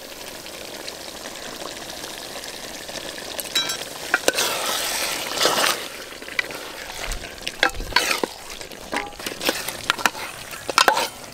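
Mutton curry sizzling in a metal pot as it is fried down with its spices, stirred with a metal ladle that scrapes and clinks against the pot. The sizzle swells for a couple of seconds in the middle as the meat is turned, then several short scrapes follow.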